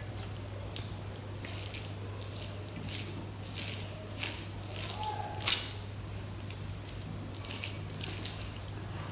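Wet squishing and squelching of cooked rice being mashed into kadhi by hand on a steel plate, a run of small irregular squishes and clicks with one sharper click about halfway through.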